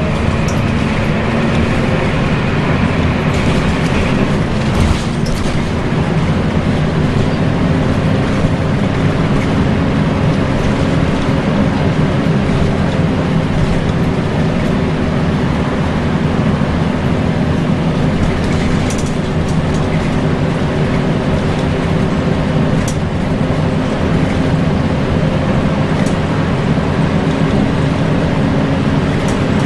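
Volvo B10BLE single-deck bus heard on board while under way: the engine and its cooling fan keep up a steady, loud whine, the 'hoover' sound, over road and body rumble. A few brief knocks and rattles come through now and then.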